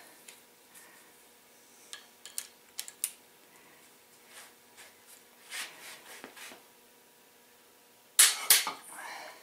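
Light metal taps and clinks from the tool work on the crankshaft and steel connecting rods, then a sharp double click about eight seconds in: a click-type torque wrench breaking over as an ARP rod bolt reaches its set torque.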